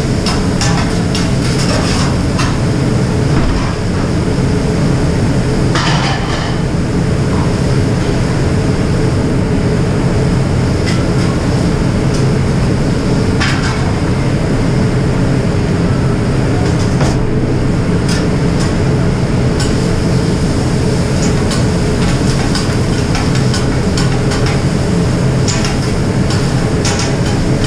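Grilling utensils knocking and scraping on a large round flat-top steel griddle in irregular clatters, over a steady loud low rumble of the kitchen exhaust hood.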